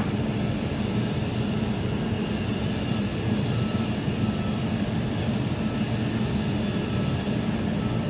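Steady low mechanical drone with an even hum, the running noise of a nearby power plant.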